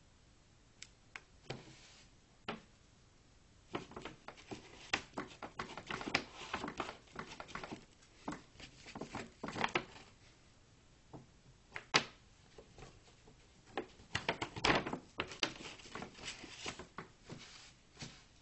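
A bag rustling and crackling in irregular bursts as a cat moves and plays inside it, with a few sharper taps. The busiest stretches come about four to ten seconds in and again toward the end.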